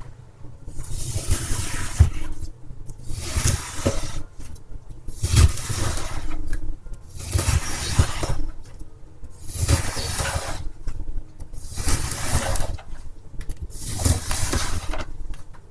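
Wet floral foam being cut: seven noisy, crackling strokes about two seconds apart, each lasting about a second, with soft low thuds inside them.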